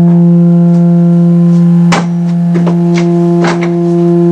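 Electrically heated 1-metre Rijke tube resonating: a loud, steady low hum with a stack of overtones, the sound of an open pipe resonator driven by the hot element inside it. A few short knocks and clicks sound over it in the second half.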